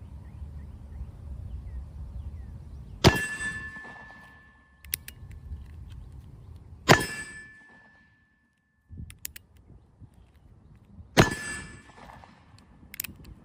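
Three sharp metallic clangs about four seconds apart, each ringing on with a clear tone for a second or so, with a couple of faint clicks between them.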